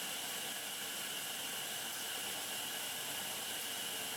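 Steady, unchanging hiss with a faint high whine running through it.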